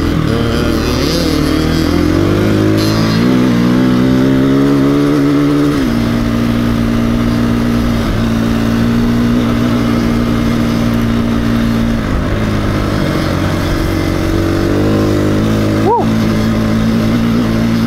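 KTM 350 EXC-F single-cylinder four-stroke dirt bike engine under way and accelerating. Its pitch climbs for several seconds, drops sharply at an upshift about six seconds in, then holds a steady cruise with brief throttle dips and rises again near the end.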